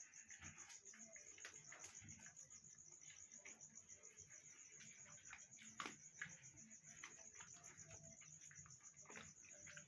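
Faint insect chirring, a high note pulsing fast and evenly, with soft scattered clicks and rustles and one sharper click about six seconds in.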